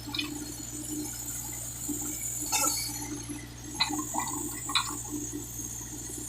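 Case 580K backhoe loader's diesel engine running steadily, with a few sharp metallic clinks about two and a half, four and five seconds in.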